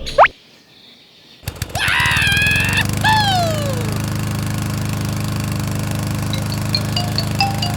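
Lawn mower engine starting up and then running steadily with a fast rattling beat, after a quick rising whistle at the very start. Chiming notes stepping upward come in near the end.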